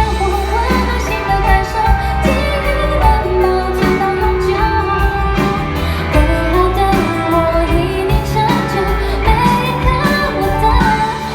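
Live pop ballad performance: a woman singing the melody over a full band with bass and drums.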